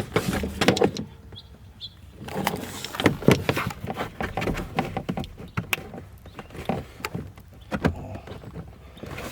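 Irregular scraping, rustling and clicking of a power wire and plastic trim being handled as the wire is pushed through a passage in a pickup truck's body, with a quieter pause about a second in.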